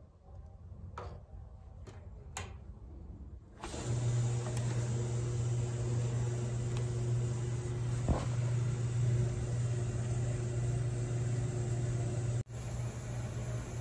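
1953 Westinghouse automatic washing machine starting its cycle: after a few light clicks, a steady low electrical buzz and the rush of water filling the drum start suddenly about four seconds in, with a thump as the porthole door shuts about four seconds later. The owner takes the buzz for the solenoid, working but with connectors he thinks need tightening.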